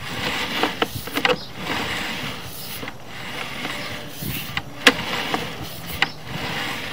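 Sewer inspection camera's push cable being pulled back out of the pipe by hand: a scraping, hissing run of noise broken by scattered clicks and knocks, with a sharp knock about five seconds in.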